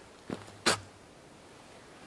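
Two short knocks about half a second apart, the second louder.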